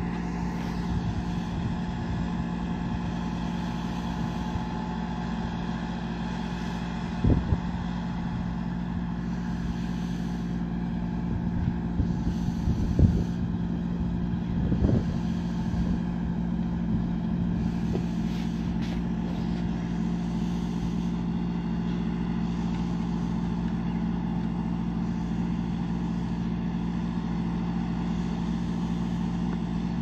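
Truck-mounted mobile crane's diesel engine running steadily, with a few brief knocks about seven and thirteen seconds in.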